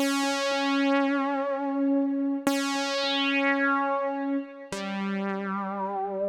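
Kurzweil K2vx synthesizer preset playing single held notes with a sharp, bright attack and a slow wavering in the upper overtones: one note struck twice, then a lower note about 4.7 seconds in.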